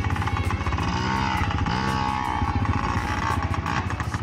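Dirt bike engine running, its pitch rising and falling a few times as the throttle changes.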